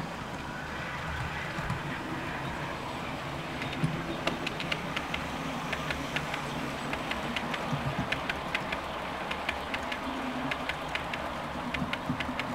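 OO gauge model train, a Merchant Navy Clan Line model hauling Pullman coaches, running past on the layout track with a steady running rumble. From about four seconds in, sharp clicks come several times a second, irregularly.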